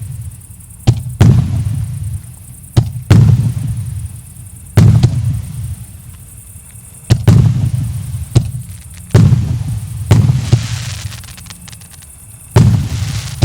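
Firework battery (salute cake) firing shot after shot: a sharp bang every second or two, each trailing off in a low rumble. A brief patter of crackling comes about ten seconds in.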